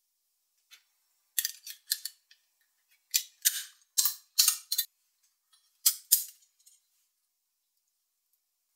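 Ring-pull lid of a small metal food can being pried up with a metal spoon handle and torn back: clusters of sharp metallic cracks and tearing scrapes, starting about a second and a half in and ending a couple of seconds before the end.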